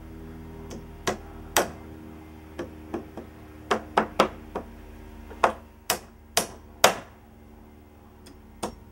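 Hand hammer driving nails into a wooden cripple stud in a wall frame: about fourteen sharp strikes of varying force in uneven groups, as nails are set and driven home.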